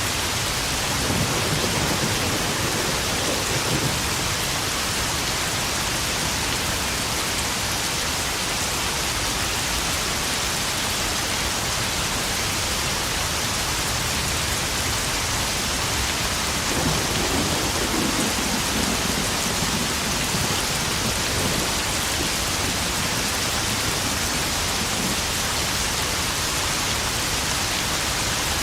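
Steady rain pouring down and pattering on puddles, with two low rumbles of thunder, one about a second in and another a little past the middle.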